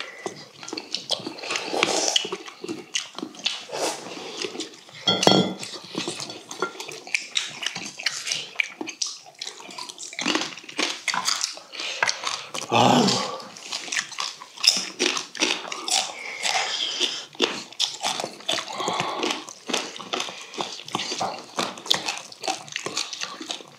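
Mukbang eating sounds: broth slurped from a stainless steel bowl and food chewed, with chopsticks and spoons clicking against steel bowls. A louder ringing clink of metal on a steel bowl comes about five seconds in.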